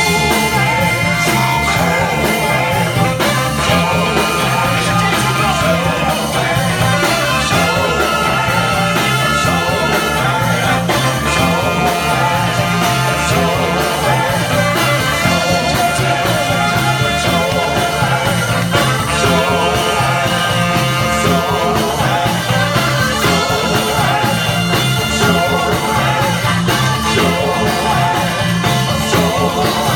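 Live soul band playing an up-tempo number, a steady bass-and-drum beat pulsing under long held notes.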